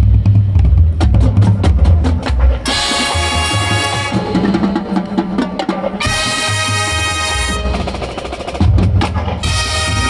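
Marching band playing: drumline passages of rapid snare and bass drum strokes alternate with loud sustained chords from the brass and winds, which come in about 3 seconds in, again about 6 seconds in, and near the end.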